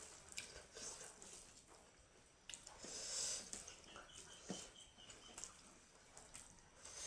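A person eating: irregular wet mouth clicks and smacks from chewing, with soft breaths between them.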